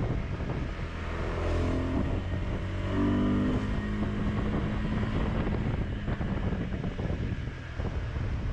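KTM 390 Adventure's single-cylinder engine running at low speed in slow traffic, a steady engine hum with a few changes in pitch as the throttle is worked.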